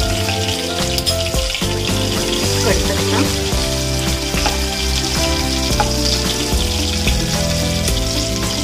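Hot oil sizzling steadily in a kadhai as green chillies and curry leaves fry in a crackled mustard-seed and cumin tempering (phodni), with background music playing.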